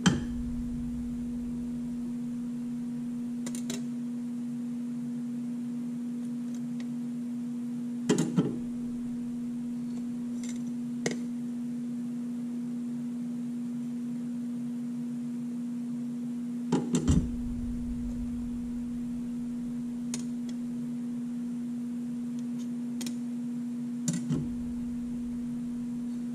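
Steady electrical hum with a single low tone, broken by a few short clinks and clatters of metal clutch plates being handled: steel and friction plates from a Mitsubishi DCT470 dual-clutch transmission's clutch pack. The loudest clatters come about a third of the way in, about two-thirds in and near the end.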